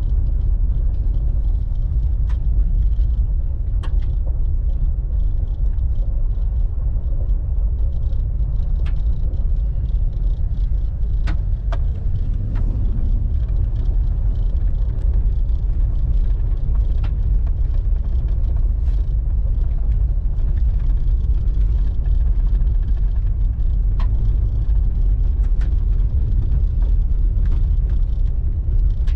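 Pickup truck driving slowly over a rough dirt trail: a steady low rumble of engine and tyres, with scattered sharp knocks and rattles.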